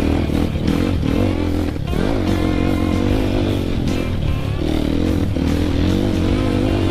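Dirt bike engine running on a trail ride, its pitch rising and falling with the throttle, mixed with background music.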